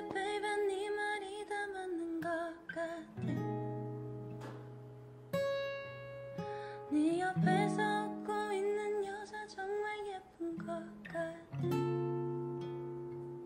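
Acoustic guitar playing a slow accompaniment while a voice sings over it, holding long notes with a slight waver.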